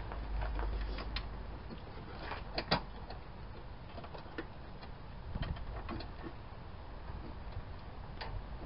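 Scattered light metallic clicks and rattles from a hand tool and a 10 mm bolt being worked into the wiper transmission's mounting, as a bolt refuses to go in. There is no steady rhythm and no power tool running.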